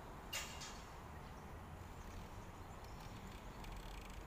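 Faint street ambience: a steady low rumble of traffic as a car drives past, with one short sharp click about half a second in.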